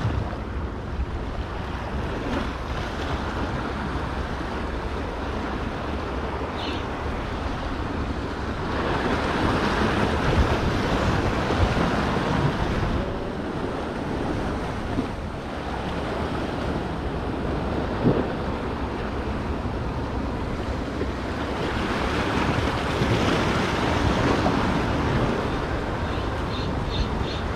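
Sea waves washing against the rocks of a jetty, swelling louder twice, with wind buffeting the microphone.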